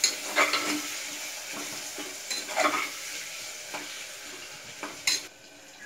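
Onion-tomato masala sizzling in hot oil in an aluminium pressure cooker while a spoon stirs it, scraping against the pot several times. The sizzle drops suddenly near the end.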